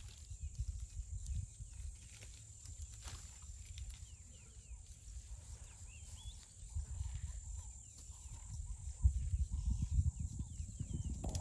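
Elephants browsing in bush: irregular low thuds and rustling of feeding and moving about, louder from about nine seconds in. Faint bird chirps and a steady high insect whine sound behind them.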